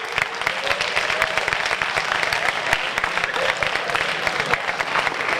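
An audience applauding, with many irregular hand claps and a few voices mixed in.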